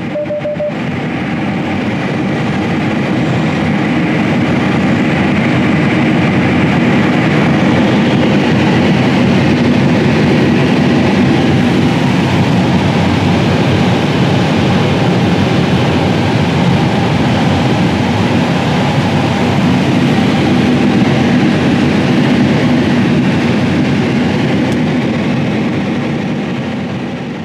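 A John Deere S780 combine harvesting corn: a loud, steady mechanical rumble and rattle of engine, corn head and threshing machinery. It grows louder over the first several seconds and fades near the end.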